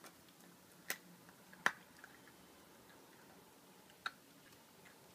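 A puppy gnawing at raw meat: faint chewing with three sharp clicks, about one second in, just under two seconds in (the loudest), and about four seconds in.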